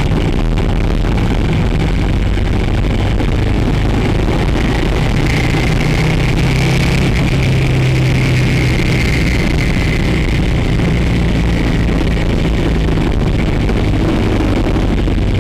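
Motorcycle engine running steadily on the move, its note a little stronger for several seconds midway.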